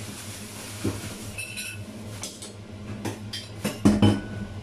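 Kitchen utensils clinking and knocking against a cutting board and countertop, with a brief ringing clink about a second and a half in and the loudest knocks near the end. A steady low hum runs underneath.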